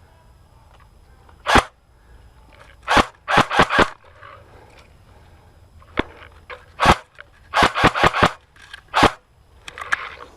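Airsoft guns firing single sharp shots, about a dozen in all, some coming in quick runs of three or four.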